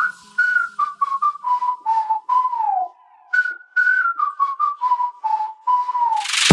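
Whistled melody of short, clear notes with a few downward slides, forming the intro of a music track.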